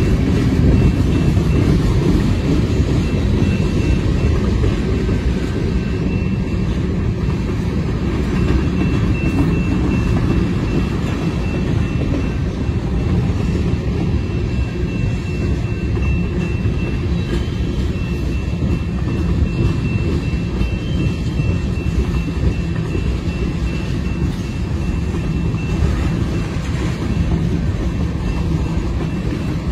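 Freight train tank cars and boxcars rolling past, a steady low rumble of steel wheels on rail, with a faint thin high tone held through most of it.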